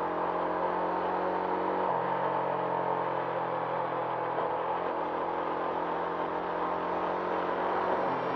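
Background music of held synth chords that change about every three seconds, over a steady rushing noise.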